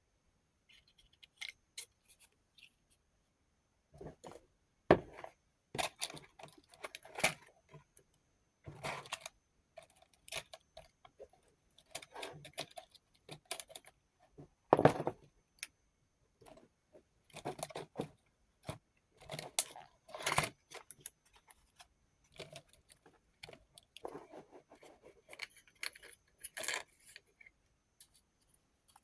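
Small metal rotary-tool bits and their plastic case being handled: irregular clicks, rattles and light scrapes, with a few sharper knocks.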